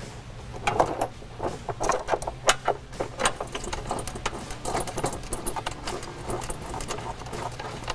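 Metal bolts clinking and tapping against a plastic battery tray as it is fastened down by hand, a string of irregular light clicks.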